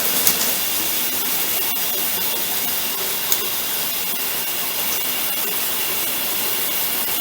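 Water spraying steadily from an LED rainfall shower head, an even hiss, with a couple of brief sharp clicks.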